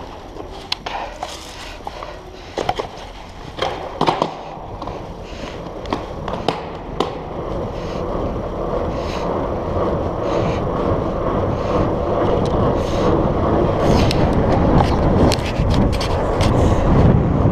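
Fat bike with 4.8-inch Surly Knard tyres rolling on pavement: a scattering of sharp clicks and knocks over the first several seconds, then a steady rolling rush of tyre and wind noise that grows louder as the bike gathers speed.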